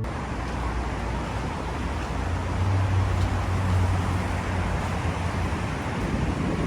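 Steady low engine rumble under a wash of wind-like noise, swelling a little a couple of seconds in.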